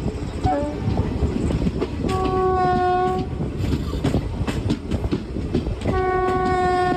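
Locomotive horn sounding two steady blasts of a little over a second each, about four seconds apart, over the continuous rumble of the express train running on the track.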